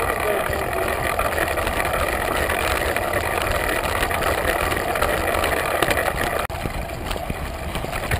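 Wind rushing over the camera microphone while a Scott Nitrous downhill mountain bike rattles over a rocky trail: a steady loud rush with many small clicks and knocks from the chain, frame and tyres on stone. The rush drops out for an instant about six and a half seconds in.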